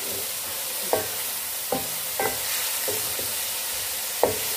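Minced meat with fried onions sizzling in oil in a metal pan while being browned, with a wooden spatula scraping and knocking against the pan about six times, each knock ringing briefly and the loudest near the end.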